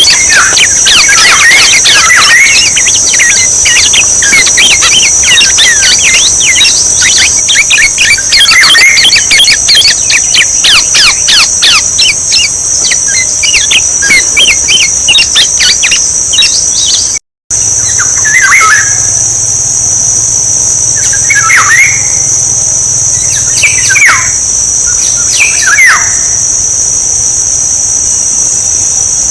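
Oriole calls: a dense run of quick chirps and whistles for the first half, then, after a brief dropout, four separate downward-sweeping calls a few seconds apart. A steady high insect buzz runs underneath.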